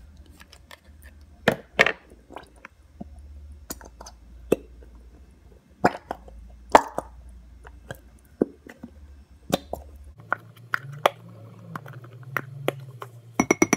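White school glue squeezed out of plastic Elmer's glue bottles into a glass bowl: scattered wet plops and squelches with light clicks and knocks from the bottles being handled. A quick run of clicks comes near the end.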